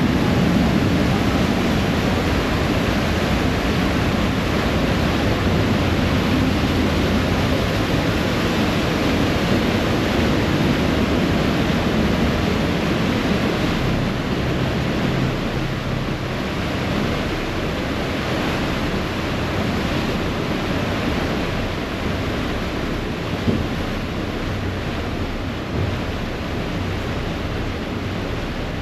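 A ferry's wake churning and rushing behind the stern, with the low rumble of the moving boat underneath and wind on the microphone; steady, easing a little toward the end.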